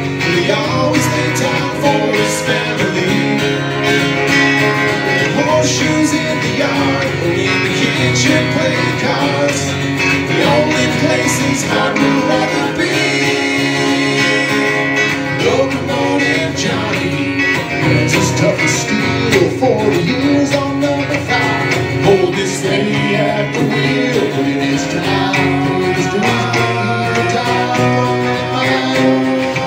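A live country band playing a song: electric guitar and acoustic guitar with several voices singing together.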